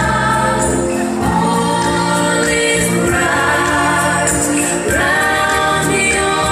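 Music: a choir singing long, held notes over accompaniment.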